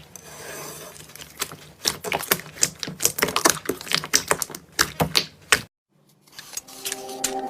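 Slime being squeezed and worked by hand, giving rapid, irregular sticky clicks and pops. It cuts off abruptly about three-quarters of the way through, and background music begins near the end.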